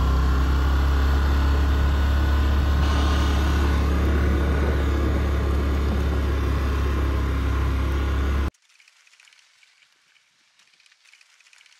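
ATV (quad bike) engine running steadily while being ridden, with a strong low drone. It cuts off abruptly about eight and a half seconds in, leaving near silence.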